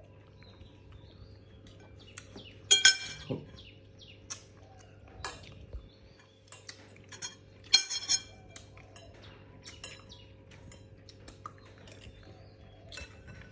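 Dog licking itself, irregular wet clicks of its tongue, with two louder bursts of clinking about 3 s and 8 s in over a steady low hum.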